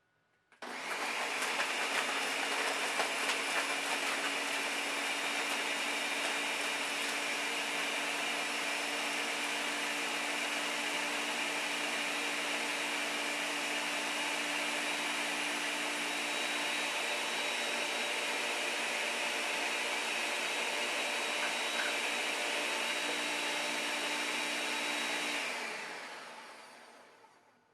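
Ninja blender's motor switching on suddenly and running steadily at full speed for about 25 seconds, then spinning down over the last two seconds as it is switched off.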